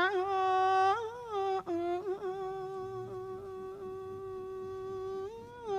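A Buddhist monk's voice holding one long sung note in a melodic Northern Thai sermon recitation, the pitch turning briefly about a second in and again near the end.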